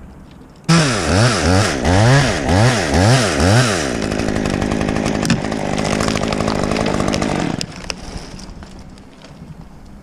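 Stihl top-handle chainsaw comes in suddenly just under a second in and is revved up and down about five times. It is then held at full speed for about three and a half seconds and drops off sharply near the eighth second.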